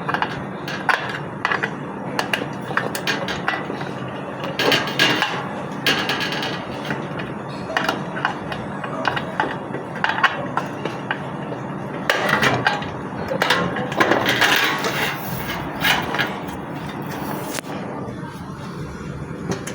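Irregular knocks and clatter of hard objects being handled, some strokes sharp like light hammer taps, over a steady background noise.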